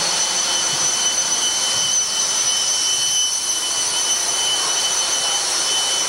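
Steady, loud machinery noise in the machinery space of a steam-powered Knox-class frigate, with a constant high-pitched whine running through it.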